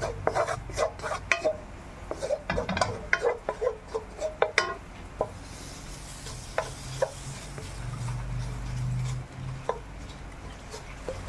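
Wooden spoon scraping and stirring dry flour in a textured stainless steel frying pan in quick, scratchy strokes. After about five seconds the strokes thin out and a soft sizzle comes up as butter melts into the hot flour.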